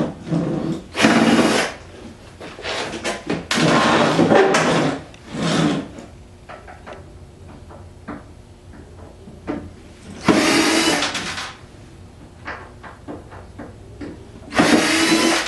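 Plastic casing and screws of a dehumidifier being handled and pried apart: several second-long bursts of scraping and rattling, with small clicks and knocks between them.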